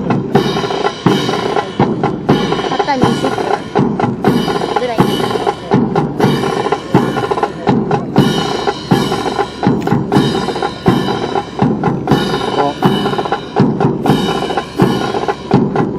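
Brass band playing a march with drums, a steady beat of about two strokes a second under the pitched band parts.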